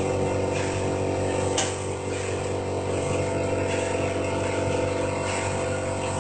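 Automatic sachet packing machine running, a steady motor hum with a sharp click about one and a half seconds in.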